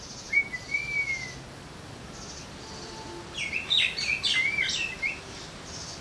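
Parakeet calling: a short whistled note just after the start, then a burst of rapid, squeaky chirps from about three and a half to five seconds in.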